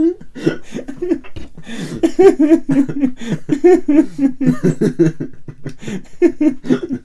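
A man laughing in a long run of deep chuckles, with a short pause about a second and a half in.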